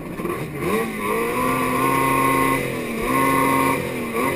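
Kawasaki SX-R 800 stand-up jet ski's two-stroke engine revving hard off the race start. Its pitch climbs, holds high, eases off briefly twice and climbs again.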